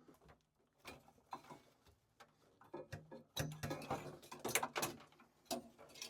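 Scattered clicks, knocks and light scraping of hand tools and parts being worked inside a boiler, coming thickest about halfway through.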